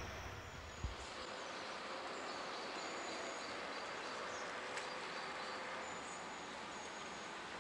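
The low rumble of a passing diesel train dies away in the first second, then a steady outdoor background noise with faint, short, high bird chirps repeating now and then.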